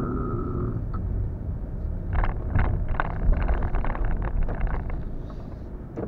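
Car cabin noise as the car slows to a stop: a low road rumble, with a falling whine that fades out about a second in, and a run of clicks and rattles from about two to five seconds in.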